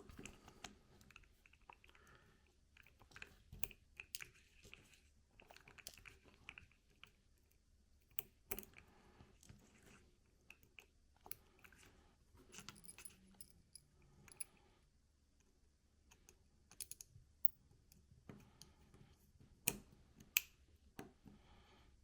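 Faint, irregular small clicks and taps of plastic and metal from hands working on a car key fob's small parts during battery replacement, with a few sharper clicks near the end.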